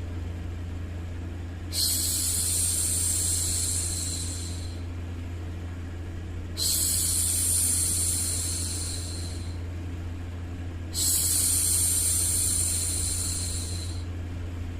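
A woman's voice making long hushing 'shhh' sounds, three in a row, each about three seconds long with a short gap between, over a steady low background noise.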